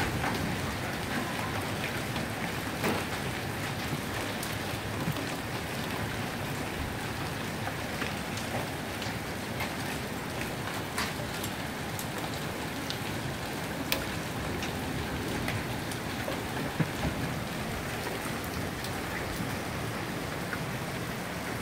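Hailstorm: a steady dense rush of rain and hail, with scattered sharp strikes of hailstones every few seconds.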